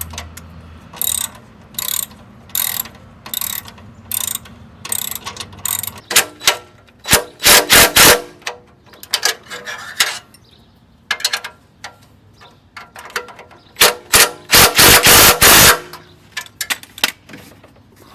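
Hand ratchet tightening exhaust flange bolts. Slow, separate clicking strokes come first, then two loud runs of rapid ratcheting.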